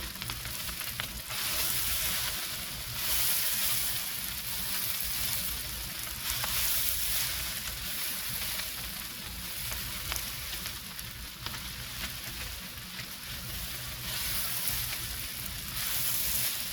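Ham fried rice sizzling in a hot pan while being stirred continuously, the sizzle swelling and easing every couple of seconds as the rice is turned, with occasional light scrapes of the utensil.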